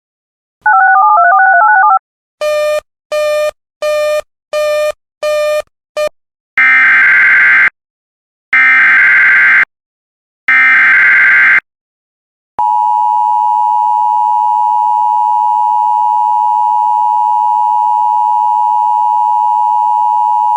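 Emergency Alert System broadcast tones. A warbling data burst is followed by six short beeps, then three roughly one-second bursts of SAME header data. The steady two-tone EAS attention signal then holds for about eight seconds.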